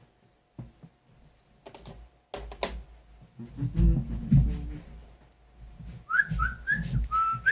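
A few low thumps and clicks, then a run of four or five short, rising whistled notes near the end.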